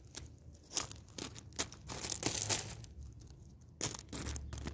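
Irregular crackling and rustling among small stones and gravel, from the set being handled. Scattered sharp clicks run over a faint low hum.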